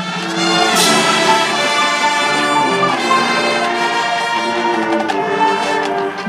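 High school marching band playing its field show, the brass section carrying the tune loudly; the full band swells up within the first second and holds there.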